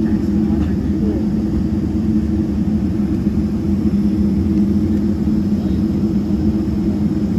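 The Boeing 777-300ER's GE90 engines idling, heard inside the cabin: a steady drone with a low hum and a faint high whine over it.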